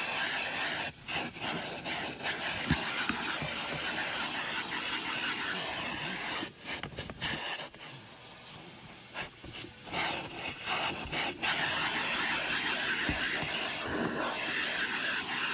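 Vacuum cleaner running with a crevice nozzle on the end of its hose, sucking at floor carpet: a steady loud rushing hiss that dips and wavers for a few seconds in the middle as the nozzle moves over the carpet.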